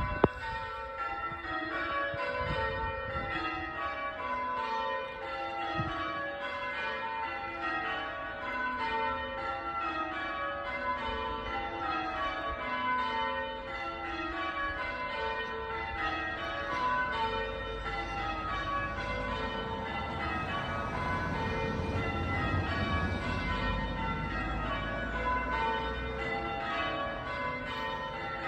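The five lightest (front) bells of a ring of eight church bells cast by Taylor's of Loughborough in 1920, rung in a steady stream of strikes that fall in repeated descending rows, as in English change ringing.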